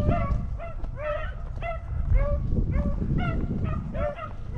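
A pack of beagles baying as they run a rabbit: many short, overlapping barks, about three or four a second.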